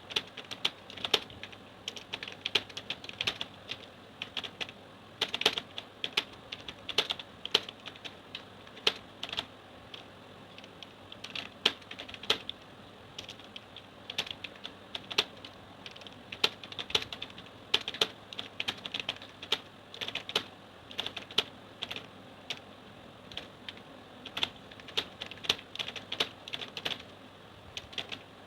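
Typing on a computer keyboard at a steady pace of about 32 words per minute during a timed typing test, keys clicking several times a second in an irregular rhythm.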